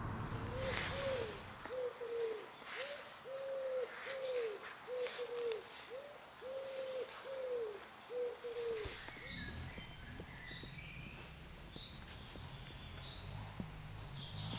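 A bird gives a fast run of about a dozen low, arched hooting notes, roughly two a second, that stops about nine seconds in. After it, a small bird gives a series of repeated high chirps.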